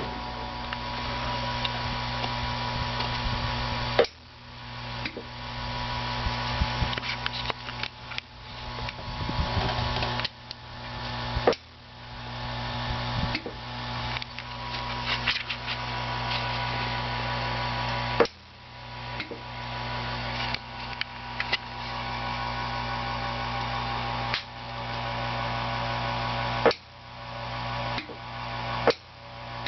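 Steady electrical hum and buzz with sharp ticks from 6JE6C vacuum tubes, about seven loud ones several seconds apart at irregular intervals and many fainter crackles in between.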